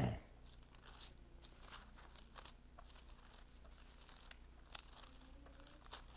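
Thin Bible pages being turned and rustled by hand: soft, irregular crinkles and flicks, with one sharper flick about three-quarters of the way through, over a low steady hum.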